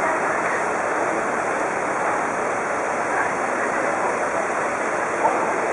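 Fast-flowing floodwater of a swollen river swirling past a pier: a steady wash of moving water.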